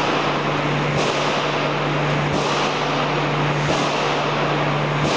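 A pan mixer and belt conveyor running: a steady electric-motor hum under loud, even machine noise, with a pulse in the hiss repeating about every one and a half seconds.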